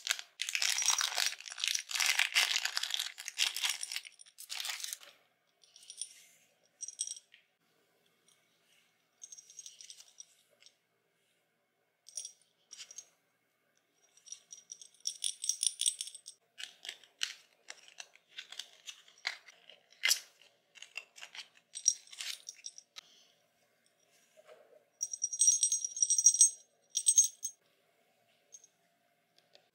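Clear plastic packaging crinkling as a small keychain is unwrapped, for the first four or five seconds. Then clusters of small clicks and light clinks as the plastic helmet charm and its metal clasp are handled, with short pauses between them.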